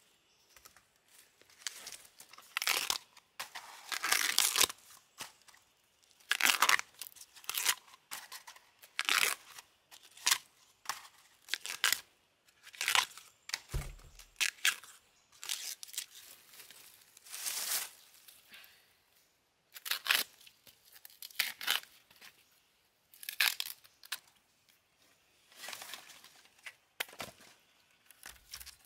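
Sheaths being torn off fresh bamboo shoots by hand: repeated papery tearing and crackling strokes, one every second or two, with short pauses between.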